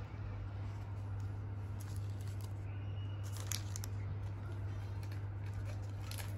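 Plastic lure packaging and a tackle box being handled: scattered clicks and crinkles, thickest about three and a half seconds in, over a steady low hum.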